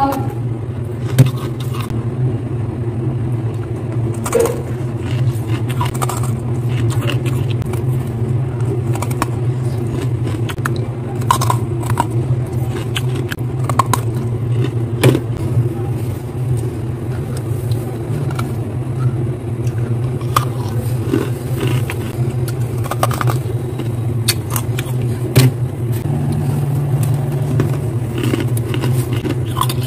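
Steady low hum of a freezer running, with scattered short crunches and scrapes of freezer frost now and then.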